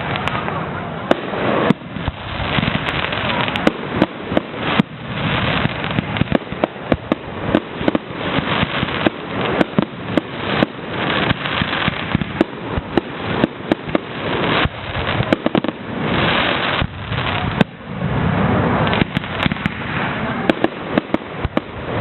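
Fireworks going off in quick succession: a dense string of sharp bangs and pops, several a second, over a continuous rushing crackle.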